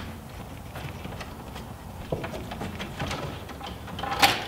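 Electrical wires being worked into the cable clamps of a steel subpanel box: faint scraping and light taps of wire against the metal, with one louder knock a little after four seconds in.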